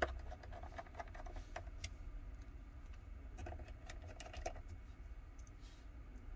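Small precision screwdriver and tiny screws being worked into a smartphone's internal frame: faint, scattered light clicks and taps of metal on metal and plastic.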